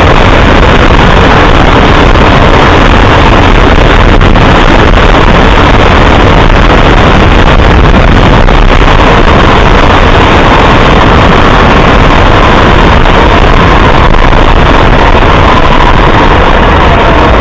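A moving road vehicle recorded on board: engine and wind noise, very loud and steady, with an engine tone that rises slightly in pitch in the second half.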